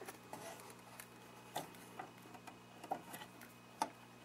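Faint, irregular small clicks and taps of hands and tools working among the wiring and capacitors of a vacuum-tube TV chassis, the loudest about a second and a half, three and just under four seconds in, over a steady low hum.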